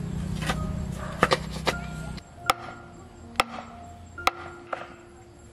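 Bamboo post being driven into the soil: dull thuds for the first couple of seconds, then sharp wooden knocks about one a second. Faint background music runs underneath.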